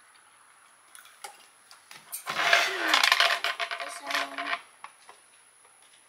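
Hard plastic parts of a hummingbird feeder clattering and clicking as they are handled and fitted together: a couple of light clicks, then about two seconds in a dense run of rattles and knocks lasting a couple of seconds.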